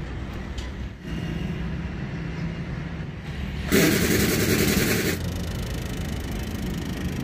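A vehicle engine running steadily, with a loud rush of hissing noise lasting about a second and a half, starting nearly four seconds in.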